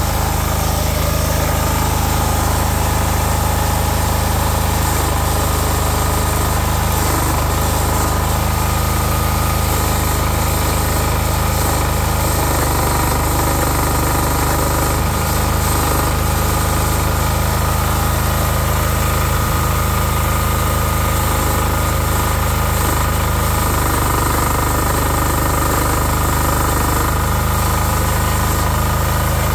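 A 10 hp diesel engine driving a homemade permanent-magnet generator, running steadily and loudly.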